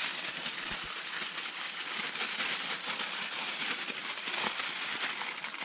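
Steady crackling hiss of campfire cooking, full of fine rapid crackles, starting abruptly just before and running on evenly.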